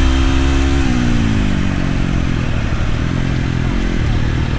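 Flat track motorcycle engine running at high revs, the revs dropping about a second in as the throttle comes off, then running lower and steadier.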